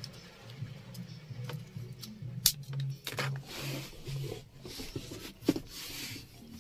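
Quiet background music with a low pulsing beat, over handling noises: a sharp click about two and a half seconds in, another near the end, and short rustles between them, as a charger plug is moved between power sockets.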